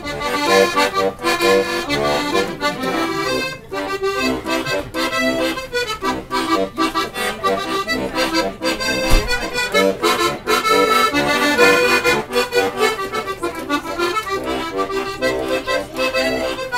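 Button accordion played live: a quick, rhythmic tune of fast-changing notes.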